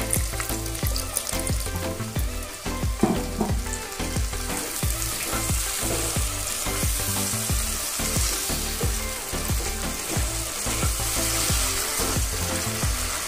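Onion, tomato and spice masala sizzling in a non-stick pan as water is poured in to keep it from burning, then stirred and scraped with a nylon spatula in repeated short strokes; the sizzle grows brighter about four seconds in. Soft background music runs underneath.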